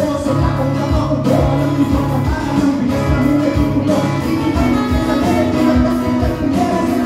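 Live music through a PA: a man singing into a microphone over a strummed acoustic guitar.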